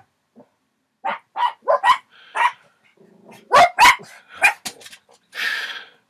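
Dogs barking in a run of short, sharp barks, the loudest two about three and a half seconds in, set off by ground squirrels fighting just outside.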